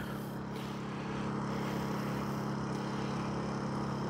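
Dinking DK2300i-M inverter generator running steadily, a constant engine hum heard from about 22 feet away, measuring around 60 dB.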